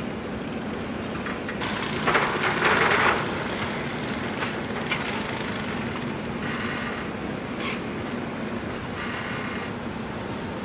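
Steady rush of water spilling from a container ship's anchor hawse pipes onto the sea, over a low steady engine drone. A louder burst of noise comes about two seconds in and lasts about a second, with a few shorter ones later.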